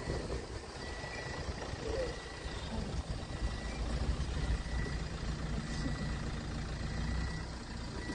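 A motor vehicle's engine idling, a steady low hum. A faint high-pitched tone comes and goes in short dashes over it.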